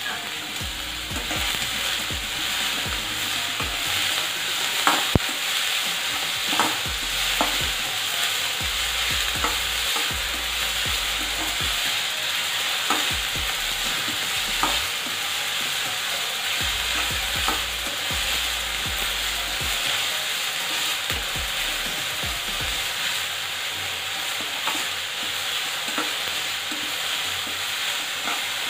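Diced green bell pepper and onion sizzling in hot oil in a stainless steel kadai while a steel spatula stirs and scrapes through them, with scattered sharp clicks of the spatula against the pan.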